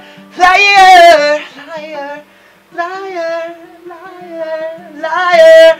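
A high voice singing long, wavering phrases over an acoustic guitar. The singing is loudest about half a second in and again near the end, and softer in between.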